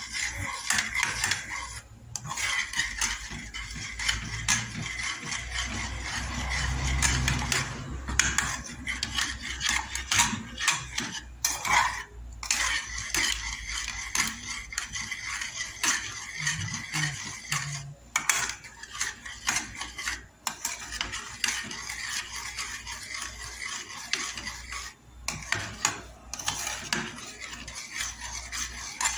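A spoon stirring a milky, creamy curry sauce in a metal pot, with constant quick scrapes and clinks against the pot's bottom and sides.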